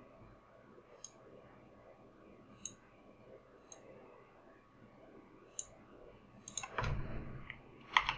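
Scattered computer mouse and keyboard clicks, one every second or two, with a short louder low noise near the end.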